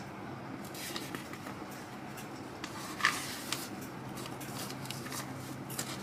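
Quiet room tone with a low steady hum and scattered faint clicks and rustles of handling, with one sharper click about three seconds in.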